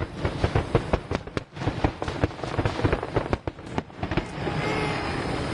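Fireworks display: rapid crackling pops and bangs in quick succession, giving way about four seconds in to a steady hiss with faint whistling.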